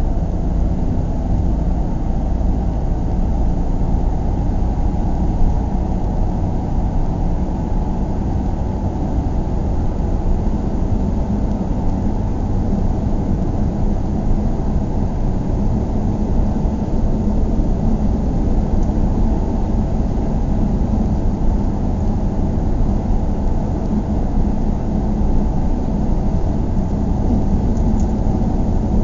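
Interior of a car while driving: a steady low rumble of engine and road noise heard from inside the cabin, with little above the low end.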